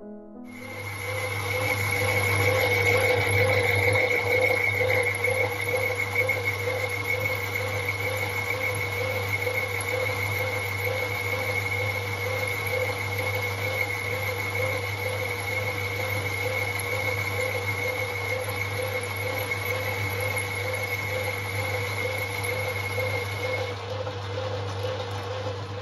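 Small metalworking lathe running at a steady speed during a facing cut on a steam engine cylinder casting: a constant motor and belt-drive hum with a steady mid-pitched tone, and a higher tone that stops about two seconds before the end.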